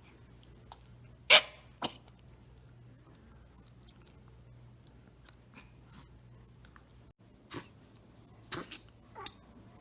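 Small dog sneezing: one sharp, loud sneeze about a second in with a smaller one right after, then a few fainter sneezes near the end.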